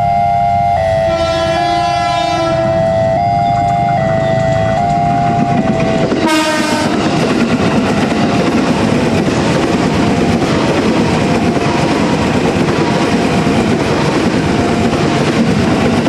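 Level-crossing alarm sounding its two alternating warning tones, then a train horn about six seconds in. An electric commuter train (KRL) then passes close by with a steady rumble and wheel clatter, the crossing alarm still going faintly underneath.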